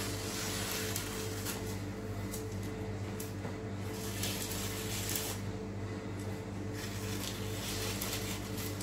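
Kitchen extractor hood running with a steady hum, while parchment paper rustles and is cut with scissors a few times as the piped zeppole are separated one by one.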